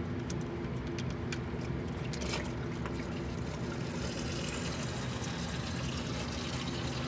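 Engine oil pouring in a steady stream from the drain hole of a Porsche Cayenne Turbo's oil pan into a drain pan, after a few light clicks in the first couple of seconds as the drain plug comes out.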